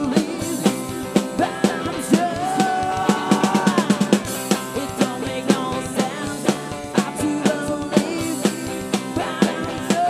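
Live rock band playing: electric guitar, bass and a drum kit keeping a steady beat under a sung lead vocal, with a long held sung note about two to four seconds in.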